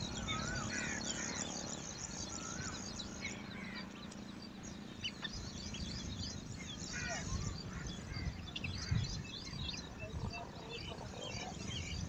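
A busy chorus of small birds chirping and calling, many short notes and quick up-and-down whistles throughout, over a low background rumble.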